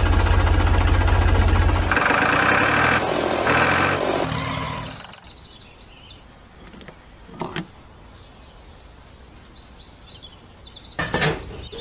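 Tractor engine sound running with a steady low chug that changes note about two seconds in and dies away about five seconds in. Then come a few light clicks as a pin is dropped into a toy tractor's trailer hitch.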